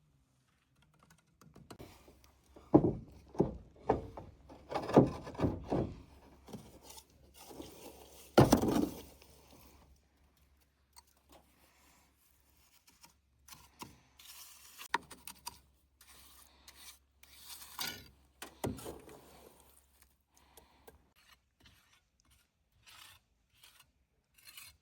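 Irregular handwork noise: a run of knocks and scrapes in the first nine seconds, the loudest about three, five and eight and a half seconds in. After that come quieter, scattered rubbing and scraping sounds with another knock near the end.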